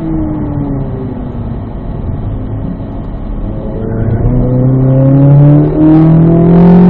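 Corvette V8 engine heard from inside the cabin in third gear. The engine note falls as the car slows into a corner, then rises steadily and gets louder from about four seconds in as the car accelerates out.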